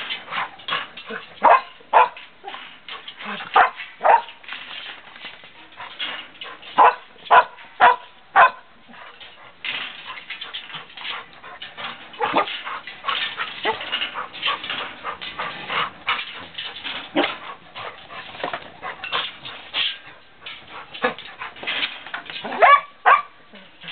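English setter puppy barking in irregular clusters of two to four short, sharp barks, with quieter gaps between.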